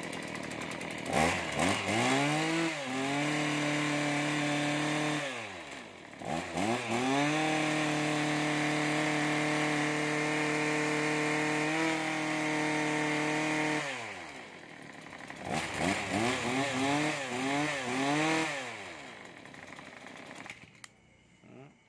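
A Mitsubishi TBE27 brush cutter's 26 cc two-stroke engine being revved with the throttle in a test run. It climbs to high revs and holds there twice, the second hold much longer, then gives a series of quick throttle blips before dropping back near the end.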